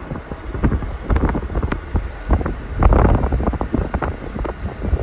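Gusting blizzard wind buffeting the microphone in rumbling, uneven blasts, with a stronger gust about three seconds in.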